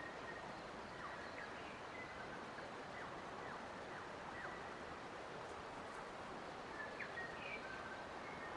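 Forest ambience: a steady rushing hiss with birds calling over it in short chirps and brief whistled notes, some sliding down in pitch.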